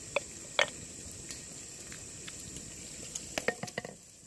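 A wooden ladle knocking and scraping against an earthenware pot as mutton is served: two sharp clicks within the first second, then a quick cluster of clinks a little past three seconds in, over a steady hiss.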